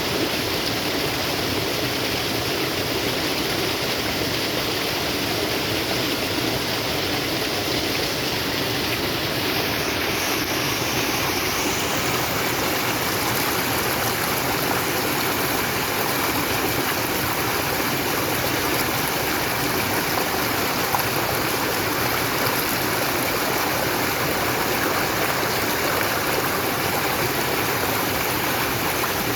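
Natural running water flowing steadily, a continuous rushing sound.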